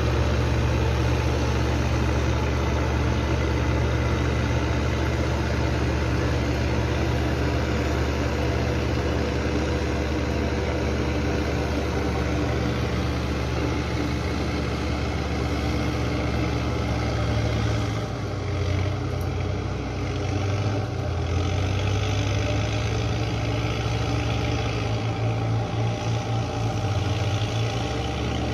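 Farm machinery's heavy engine idling steadily, its low note shifting briefly about two-thirds of the way through and again near the end.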